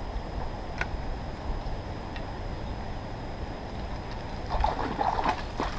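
Steady rush of river water with low wind rumble on the microphone; near the end a cluster of rustling and knocking, then one sharp knock.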